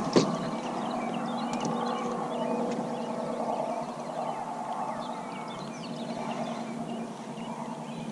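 Many short bird chirps at daybreak over a steady low hum, with one sharp click just after the start.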